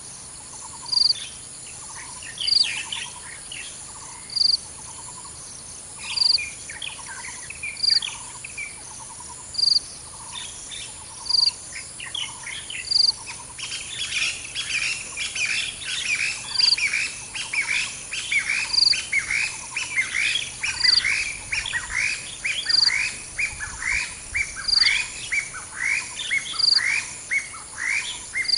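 Birds chirping and calling: a short high chirp repeats about every second and a quarter. About halfway through, a quick run of falling chirps joins in, roughly two a second.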